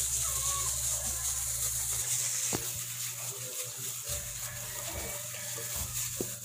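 Plastic-gloved hands kneading and squishing a wet raw ground-pork filling in a bowl, with soft glove rustle and a few faint ticks over a steady low hum.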